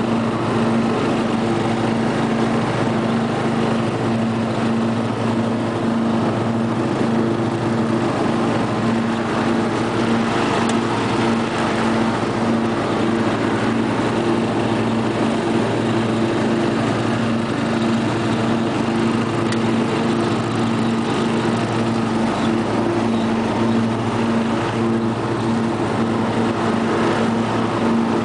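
Lawn tractor's 12 hp Briggs & Stratton engine running steadily as the tractor drives across the grass, a constant, even hum with no changes in speed.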